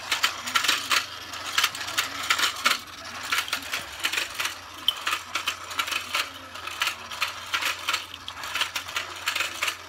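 Battery-powered Let's Go Fishin' toy pond turning, its plastic mechanism and fish clicking in a rapid, irregular stream of light clatter.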